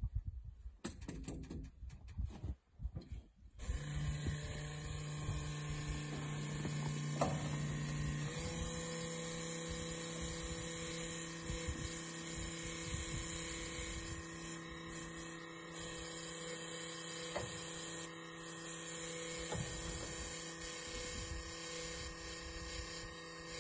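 Electric diesel transfer pump on a truck-bed slip tank running steadily with a hum, fuelling a truck through a hose. The pump starts about four seconds in, after some handling noise, and steps up to a higher pitch about eight seconds in.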